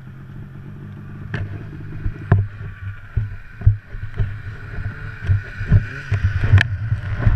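Snowmobile engine idling with a steady low hum, with irregular sharp knocks and bumps over it.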